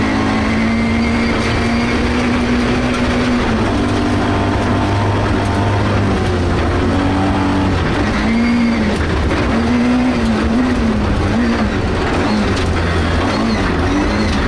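Rally car engine heard from inside the cabin at stage speed, revs climbing and dropping with gear changes and lifts, over a steady rumble of tyres on gravel.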